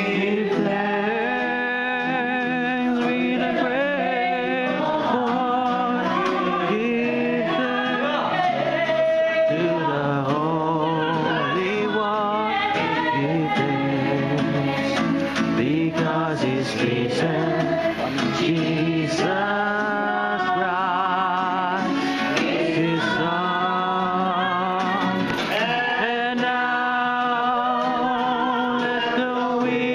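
Live Christian worship song: a woman and a man singing with vibrato over an acoustic guitar.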